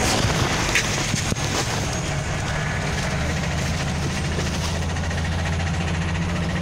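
Scania OmniLink CL94UB city bus's diesel engine running steadily, a low drone heard from inside the passenger cabin.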